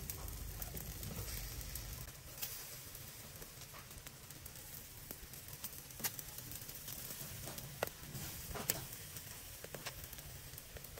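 Chicken feet sizzling on a wire grill over a charcoal stove, with faint crackling throughout and a few sharp ticks, the loudest about six and nearly nine seconds in.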